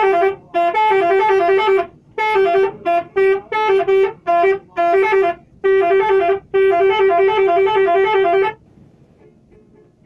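Bus 'telolet' horn, a multi-note musical air horn, playing a tune in a string of short and long loud blasts, the notes changing within each blast; it stops about eight and a half seconds in.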